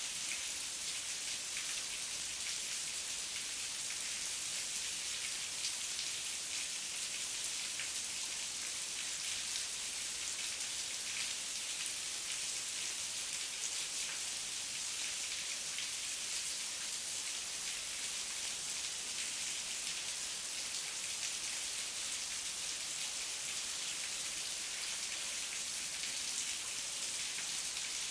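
Steady heavy rain falling, a constant high hiss thick with fine drop ticks, with no thunder.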